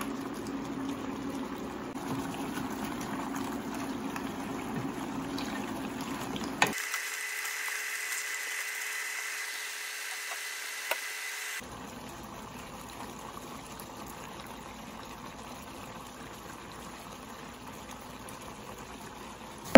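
Seafood sauce bubbling and sizzling as crabs, shrimp and mussels simmer in a pan, stirred at first, heard in short clips that change abruptly about a third of the way in and again past halfway, with a faint steady high tone in the middle clip.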